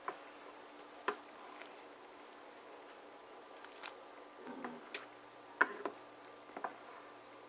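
Plastic spoon stirring dough strips in thick, slowly boiling milk in a stainless steel pot: soft squelches and a scatter of light knocks of the spoon against the pot, most of them in the second half.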